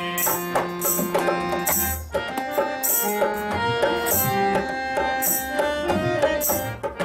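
Instrumental interlude of a Hindi devotional song: a melody of stepping notes over hand-drum strokes and a regular high, shaker-like hiss, with a brief break about two seconds in.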